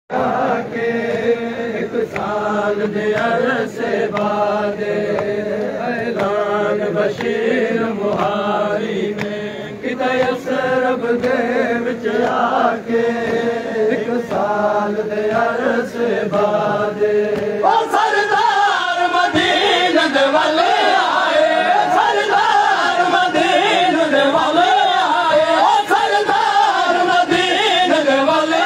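Nauha, a Shia lament, chanted by men's voices in phrases, with steady chest-beating strikes keeping time. About two-thirds of the way through, the chant moves to a higher, louder line.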